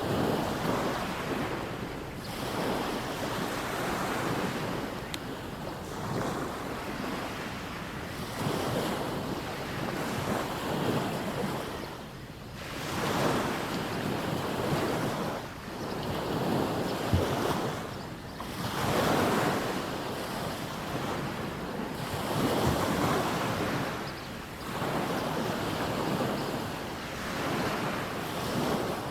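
Sea waves breaking and washing up a sandy beach, swelling and falling away about every three seconds.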